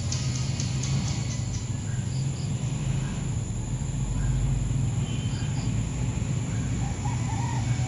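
Outdoor rural ambience: a steady bed of insect noise and a low background rumble, with a few short, faint bird chirps, some in pairs.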